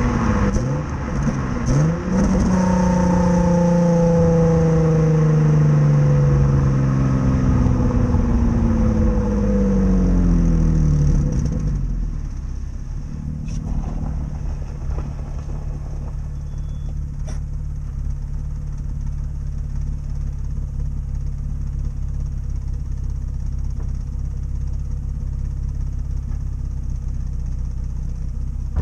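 2005 Nissan 350Z's VQ35DE 3.5-litre V6 through its stock exhaust with a big exhaust leak: the engine note falls slowly as the revs drop for about ten seconds, then settles into a steady, quieter idle for the rest.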